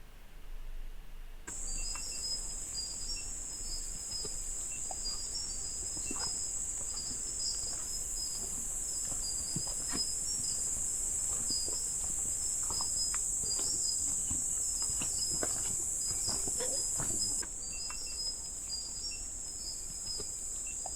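A steady high-pitched chorus of insects shrilling, with a faster, rapidly repeating chirp just beneath it. It comes in about a second and a half in and drops a little in level near the end, with faint scattered clicks and rustles underneath.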